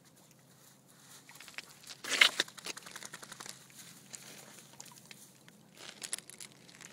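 Two Dobermanns' paws pattering and crunching on wet gravel and stones at the water's edge, with one short, loud noisy burst about two seconds in.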